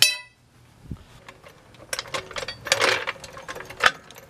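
A sharp metal clank that rings briefly, then a low thump and scattered clicks, clatters and a short scraping rush as a steel floor jack is rolled on concrete and set under the lower control arm.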